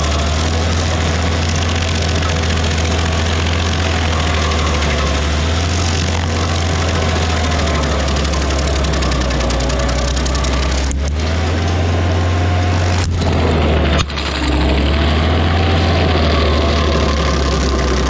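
Large gas engine of a tree-work machine running steadily: a constant low hum under a wide, noisy hiss, with a faint wavering tone above. The sound breaks off abruptly a few times near the end, then carries on.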